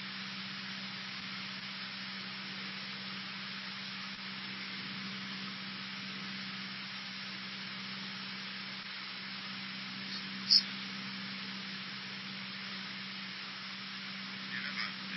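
Cessna 152 cabin noise in flight: the four-cylinder Lycoming engine, propeller and airflow make an even hiss over a steady low hum. A single brief click comes about ten and a half seconds in.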